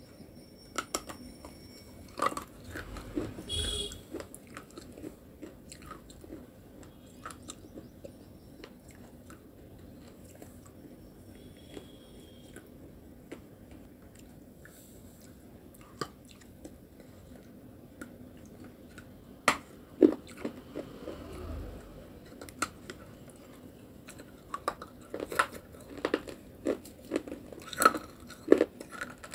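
Close-up biting and crunchy chewing of a slab of dried white clay paste (nakumat paste). The crunches are sparse at first, then come thick and fast in the second half.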